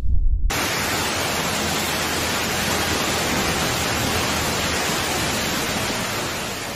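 Steady, even hiss of heavy precipitation falling on a street, with no separate impacts. It starts abruptly about half a second in and fades near the end.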